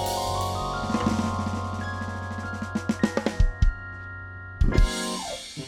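Live instrumental trio music with a drum kit: held chords ring under drum and cymbal hits, building to a few loud accented strikes near the end, as in the close of a tune.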